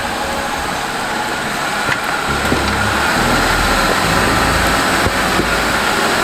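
Off-road Jeep's engine running at low revs as it crawls slowly down a rutted dirt trail, growing a little louder about two seconds in.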